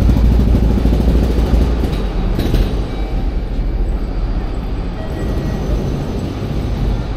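City street traffic: a heavy low vehicle rumble that eases off after about two seconds, over steady street noise.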